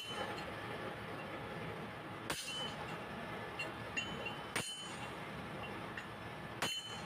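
Isuzu Elf truck engine running with a sharp metallic knock about every two seconds, four in all: the knock of a defective idler gear bushing.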